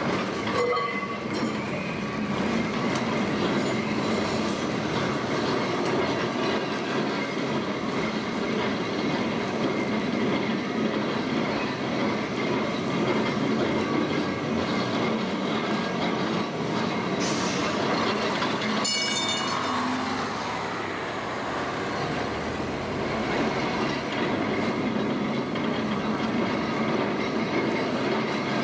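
A 1930s vintage Lisbon tramcar running steadily along its rails, with a continuous rumble and rattle from the wheels and car body. About two-thirds of the way in there is a brief metallic ring.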